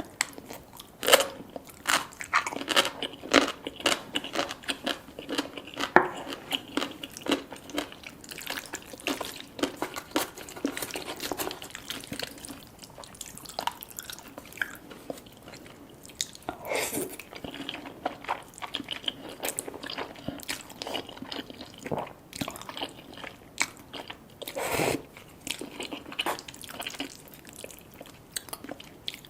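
Close-up eating sounds: a person biting and chewing crunchy food, with dense crackling crunches and a few louder bites.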